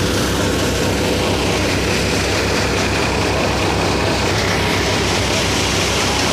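Tractor-driven grain thresher running steadily at work: the tractor's diesel engine under load together with the thresher's drum and shaker, a constant mechanical noise with a regular low pulse.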